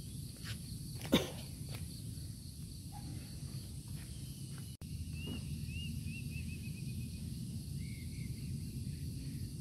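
Outdoor ambience with a steady high insect drone over a low rumble. About five seconds in a bird gives a run of short chirps that come faster and faster, and two more chirps follow near the end.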